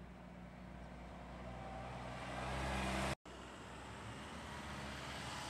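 A motor vehicle driving by, its hum growing louder until the sound cuts off abruptly about three seconds in; after that, a quieter steady outdoor background.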